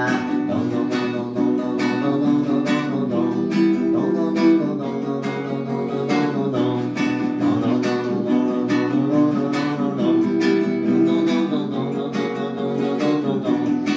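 Instrumental section of a dance song with no vocals: melodic lines over a steady, evenly spaced beat.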